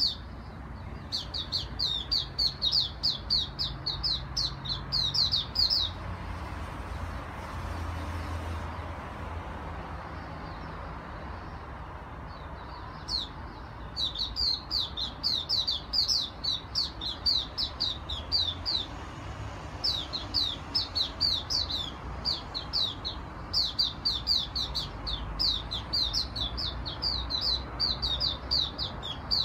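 A caged songbird singing long, rapid-fire runs of sharp, high, downward-swept notes, about four a second. This is the continuous burst that bird keepers call a "long gun". The song stops for several seconds about six seconds in, then starts again and runs on with only brief breaks.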